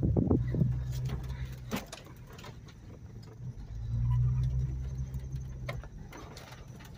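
Volvo 850's five-cylinder engine and road drone heard from inside the moving car, louder at first, fading, then swelling again about halfway through before easing off, with a few light clicks and rattles.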